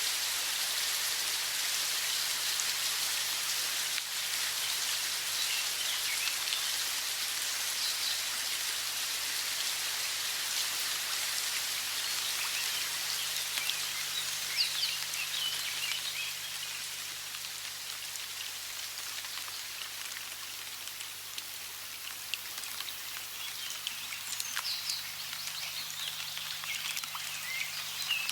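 Steady rush of running water, with small birds chirping now and then, more often near the end.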